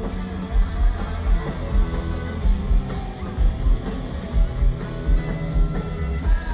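Live rock band playing a guitar-led passage, electric guitars over a steady drum beat, heard from within the crowd at a concert.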